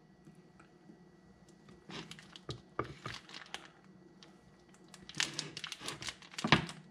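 A knife slicing through a block of Colby Jack cheese and knocking down onto a bamboo cutting board: a few scattered clicks and knocks, the loudest near the end.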